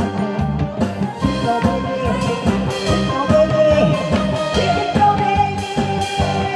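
Korean trot music with a steady beat and a woman singing over it through a headset microphone.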